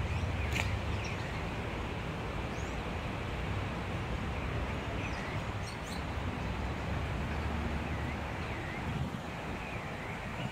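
Outdoor ambience: a steady low rumble, with short bird chirps now and then.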